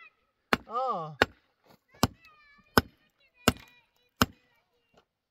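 Axe blows striking the ground at the base of a wooden post set among stones: six sharp strokes, roughly one every 0.7 seconds. A snatch of singing comes between the first strokes.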